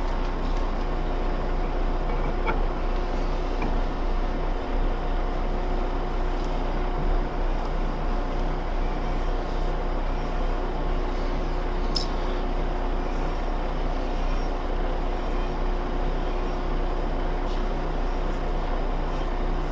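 Steady machine hum, with a few faint metallic clicks as a heavy threaded cylinder eye is spun by hand into a freshly single-point-threaded internal bore. The sharpest click comes about twelve seconds in.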